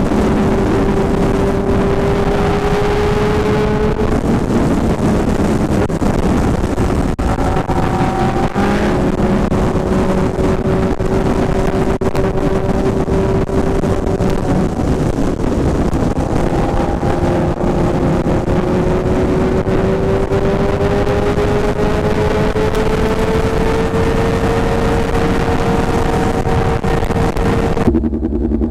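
Motorcycle engine droning at highway cruising speed under heavy wind rush on the microphone; the engine note dips about four seconds in, then climbs slowly through the second half as the bike speeds up. Near the end the wind cuts off abruptly.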